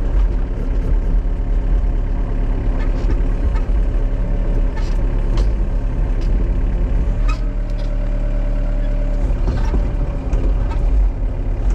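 Excavator's diesel engine running hard under hydraulic load while the machine pulls on a large tree, with a few brief sharp knocks and cracks.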